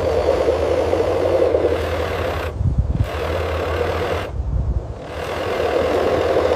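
Motor and gears of a radio-controlled toy truck running steadily, easing off briefly twice.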